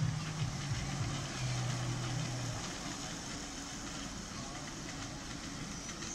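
Miniature railway locomotive running steadily as it hauls a riding train away, its low hum fading out about two and a half seconds in.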